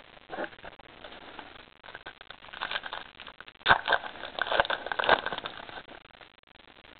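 Crinkling and crackling of a foil trading-card booster pack being torn open and handled, in irregular bursts with sharper crackles around the middle.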